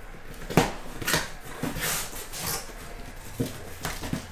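Cardboard shipping case being handled and slid across a tabletop: several knocks of cardboard on the table and a scraping rustle in between.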